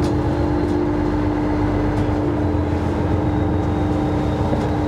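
Fishing boat's engine and deck machinery running steadily: a constant hum over a low rumble.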